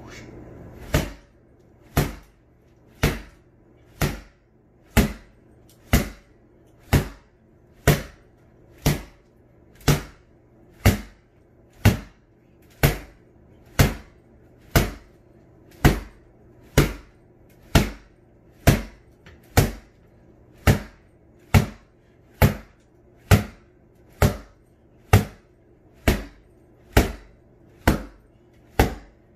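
A taped rattan SCA sword striking a freestanding Everlast punching bag over and over in a pelling drill: about thirty short, sharp hits at a steady pace of roughly one a second. A faint steady low hum lies underneath.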